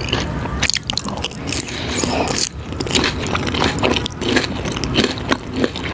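Close-miked ASMR eating sounds: a dense run of crunchy bites, crackles and scrapes.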